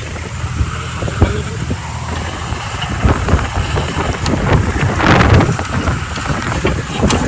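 12 HP diesel water-pump engine running steadily, with scattered clicks and knocks and a louder noisy surge about five seconds in.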